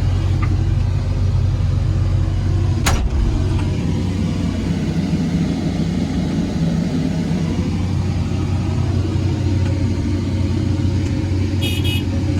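Komatsu PC160LC excavator's diesel engine running steadily, heard as a loud low hum from inside the cab, with a sharp click about three seconds in and a brief high-pitched chirp near the end.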